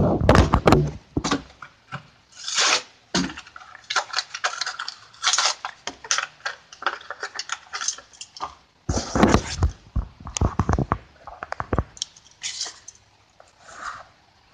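Hot Wheels blister pack being cracked and torn open by hand: irregular crackling, crinkling and clicking of stiff plastic and card, in fits and starts, dying down near the end.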